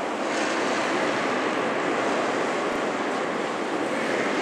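Steady rushing background noise of an indoor curling ice hall, even and unbroken, with no distinct knocks or brushing strokes standing out.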